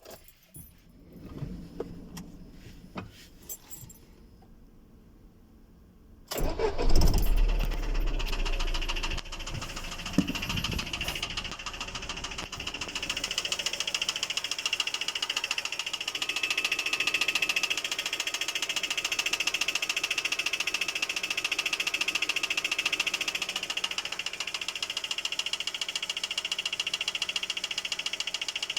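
After a few faint clicks, a GAZelle Next's Evotech 2.7 petrol four-cylinder engine starts about six seconds in, revs up briefly and settles to idle. A fast, even knocking runs through the idle: the knock in the engine whose cause the owner is asking about.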